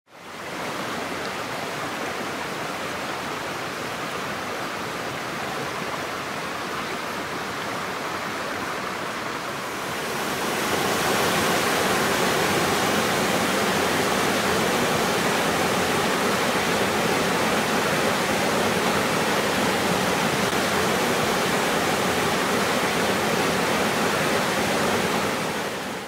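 Water of a small rocky creek rushing and cascading over boulders: a steady rush that fades in at the start and grows louder about ten seconds in.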